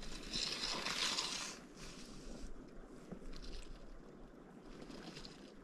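Wind on the microphone and flowing river water, with a louder hissing gust in the first second and a half.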